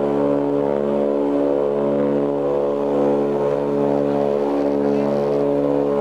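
Ilyushin Il-18's four Ivchenko AI-20 turboprop engines and propellers in cruise, heard inside the passenger cabin: a steady deep hum of several tones that swells and fades about once a second.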